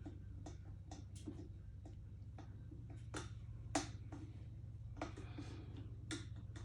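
Scattered light clicks and taps of an electric kettle and small parts being handled during its repair, the loudest about two-thirds of the way through, over a steady low hum.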